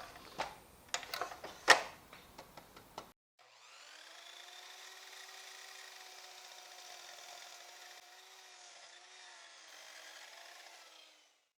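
A few light knocks and clicks of wood being handled, then an electric miter saw running at a steady pitch for about seven seconds as it cuts through the glued-up wooden block, heard faintly.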